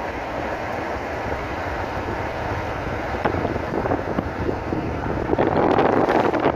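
Steady road and wind noise of a car driving on a highway. About five seconds in, the rush of wind over the microphone gets louder and gustier as another car passes close alongside.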